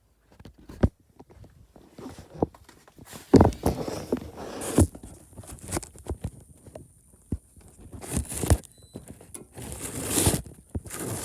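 Handling noise: an irregular run of knocks and clicks with a few bursts of rustling as objects are picked up and moved about on a work surface.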